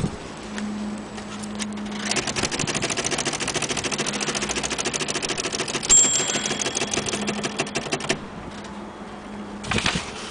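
Olympia SM3 De Luxe manual typewriter keys being struck in a fast, even run of clacks for about six seconds. A short bell ding sounds partway through, the typewriter's end-of-line warning bell.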